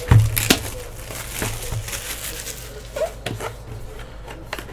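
Trading-card packs and cards being handled: wrappers crinkling and cards rustling in scattered clicks, with a thump at the start.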